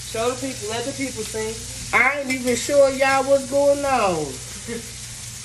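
Burger patties frying on an electric griddle, a steady sizzle underneath. Over it, louder, a woman's wordless voice in sliding and long held notes for about four seconds.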